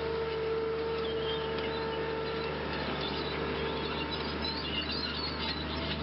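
A machine's engine running steadily at idle, a low hum with a steady whining tone, as a hydraulic tree spade holds a dug cedar. Birds chirp faintly over it.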